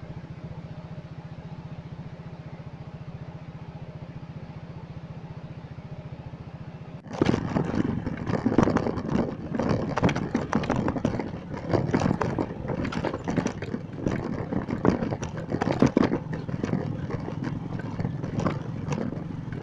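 Motorcycle engine running steadily at low speed. About seven seconds in, the sound changes abruptly to louder, uneven rattling and clattering as the bike rides over a rough off-road track.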